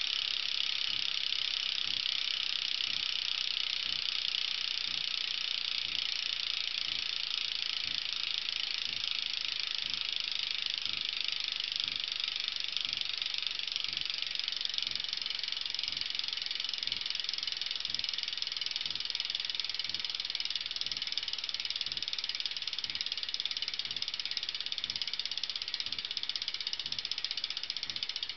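PMP bicycle hub's freewheel ratcheting as the wheel spins freely: a fast, even buzz of pawl clicks.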